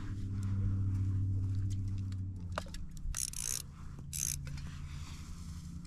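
Small spinning reel on an ice-fishing rod being cranked under load as a fish is reeled up through the ice hole: a steady mechanical whir, stronger in the first couple of seconds. Two short raspy bursts come about three and four seconds in.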